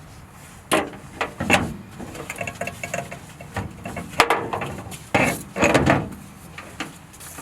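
Irregular metallic clanks and knocks, a handful of sharp hits, some with a brief ring, as metal parts and tools are handled.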